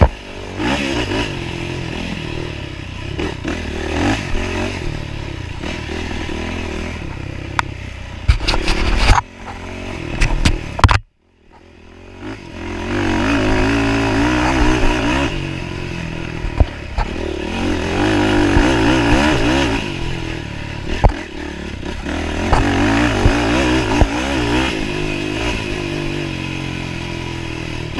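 Off-road motorcycle engine revving up and down as it is ridden hard over a rough dirt trail, with knocks and clatter from the bike over bumps. The sound cuts out for about half a second around eleven seconds in, then the engine picks up again.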